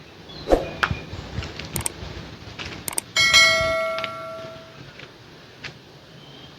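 A bell-like metal chime struck once about three seconds in, ringing with several clear tones that fade over about a second and a half, after a run of light clicks and knocks.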